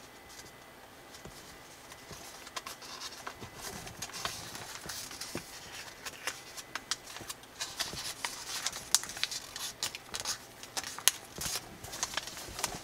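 Sheet of origami paper being folded and worked by hand: an irregular crackling rustle with many sharp crisp clicks, quieter for the first couple of seconds and then busier.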